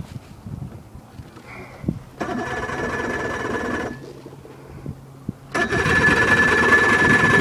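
Johnson V4 outboard motor's electric starter cranking the engine over in two bursts of about two seconds each, with a steady high whine over the whir.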